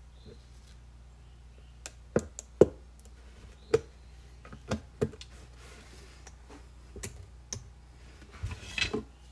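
Scissors snipping away at the hard plastic of a laundry jug to widen an opening: about eight sharp, irregular clicks spread over several seconds, with a short rattle of handling near the end.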